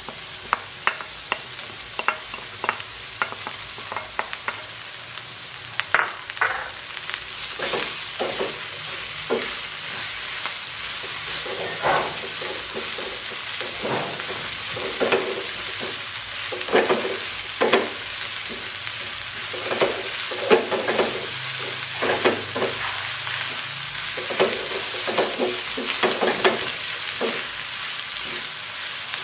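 Vegetables sizzling in a nonstick frying pan as a wooden spatula stirs and tosses them: a steady frying hiss with frequent, irregular scraping strokes of the spatula against the pan.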